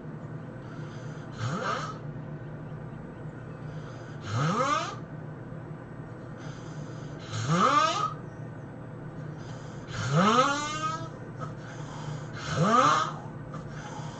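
A person snoring heavily: five loud snores about three seconds apart, each rising in pitch as it goes, with quieter breathing between them.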